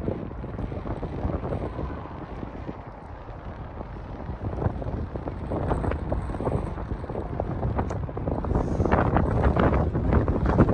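Wind buffeting the microphone in gusts, growing louder toward the end.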